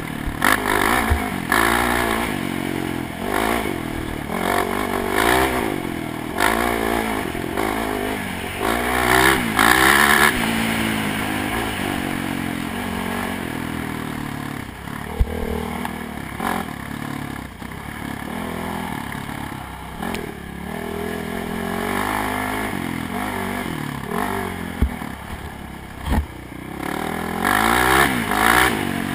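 ATV engine running hard on a rough dirt trail, its pitch rising and falling with throttle and gear changes, over the rattle and clatter of the machine bouncing. A few sharp knocks come from bumps, one about halfway through and two near the end.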